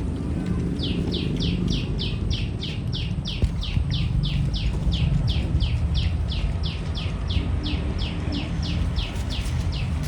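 A bird calling in a fast, even series of short high chirps, each falling in pitch, about three a second, over a steady low rumble.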